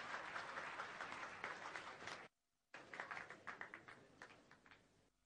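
An audience applauding: dense clapping that breaks off completely for a moment about two seconds in, then comes back and thins out, dying away near the end.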